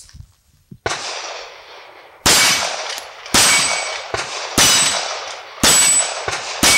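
Springfield Armory 1911 pistol in 9mm firing a steady string: a fainter bang about a second in, then five loud shots about a second apart. Each shot is followed by the ring of a struck steel plate. The freshly cleaned and lubed pistol cycles without jamming.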